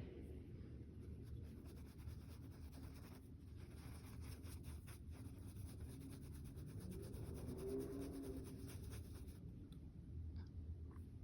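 Faint scratching and rubbing of an art tool working on a surface, over a low steady hum.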